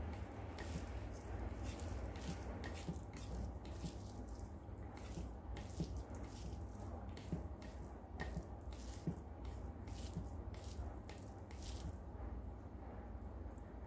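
Fingers mixing and squeezing rice with fried red amaranth leaves on a plate: a run of soft, wet squishing clicks at irregular intervals.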